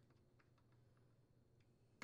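Near silence, with a few faint, sparse clicks of a screwdriver tightening the ignition coil's mounting screws on a chainsaw.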